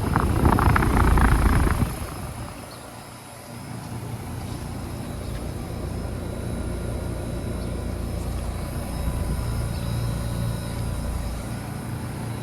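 Outdoor central air-conditioner condenser units running: a steady low hum of the compressor and condenser fan with faint steady tones. A louder rush of noise fills the first two seconds.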